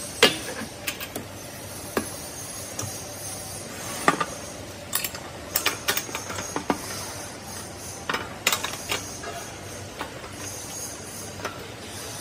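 Compressed air hissing steadily, as when blowing powder out of a powder packing machine's auger filler, with scattered sharp metal clicks and knocks from parts being handled.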